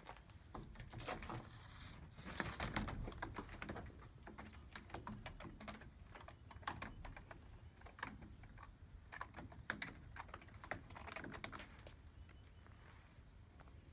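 A cat's claws scratching and catching on a sisal-rope scratching post as it climbs: an irregular run of scratchy clicks, busiest about two to three seconds in.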